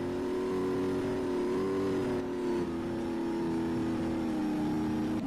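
Steady vehicle engine drone, a sound effect laid over the toy tank, holding one pitch with a slight drop about two and a half seconds in.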